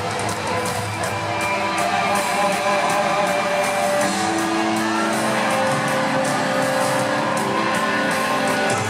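Live band music played through an arena PA, heard from among the audience, with sustained chords coming in about four seconds in.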